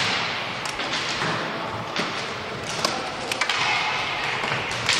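Inline roller hockey play in a large hall: several sharp clacks of sticks hitting the ball and the floor, over the steady hiss of skate wheels rolling on the wooden court.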